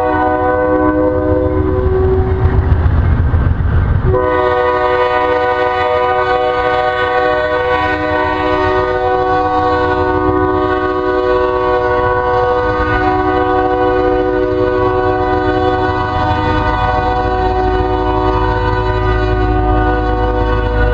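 Ferromex diesel locomotive's multi-chime air horn blowing one long, steady chord as the train pulls away, over the low rumble of the train. About two seconds in, the horn is briefly drowned by loud rumbling and clatter from the passing cars, then it carries on unchanged.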